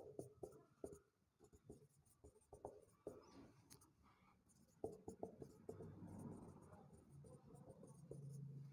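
Very faint marker pen writing on a whiteboard: scattered light taps and strokes of the tip as equations are written out.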